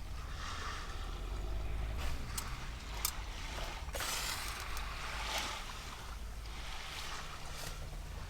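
Sea waves breaking and washing on the shore, swelling and falling back in several surges over a steady low rumble.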